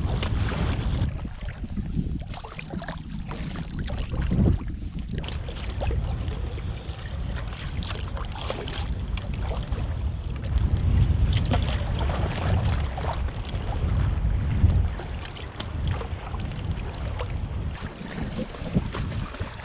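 Gusty wind noise on the microphone over water splashing and lapping against a Bergans Ally folding canoe's hull, with paddle strokes, as the canoe is paddled into a headwind through choppy waves.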